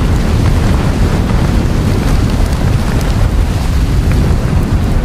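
Steady, loud, rumbling roar of Mount Etna's lava fountain erupting from the summit crater, with wind buffeting the microphone.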